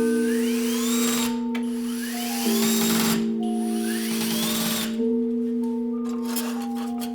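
Background music: held synth chords that change every couple of seconds, with three rising whooshing sweeps and light chime notes over them.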